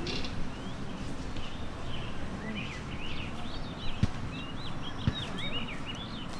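Outdoor ambience of several birds chirping in quick, short calls that rise and fall, over a steady low rumble. Two dull low thumps come about four and five seconds in.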